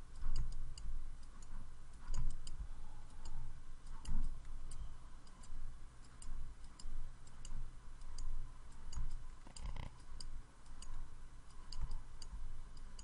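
Computer mouse clicking irregularly, several clicks a second, as points are placed one by one with a modelling tool, over a low rumble.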